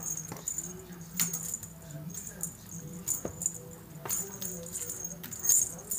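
Light, irregular jingling and rattling, sharp shakes a second or so apart, from a kitten pouncing on and swatting a feather wand teaser toy.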